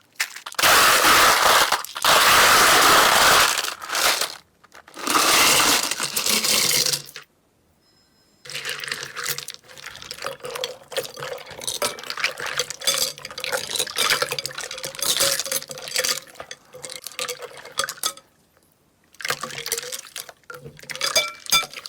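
Water poured or running in two long bursts, then wet slime being worked by hand, squished and kneaded with rapid crackling, clicking sounds.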